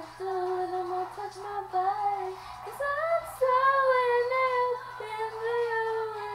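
A girl singing without words in long held notes, stepping up to a higher, wavering note about three seconds in and coming back down about five seconds in.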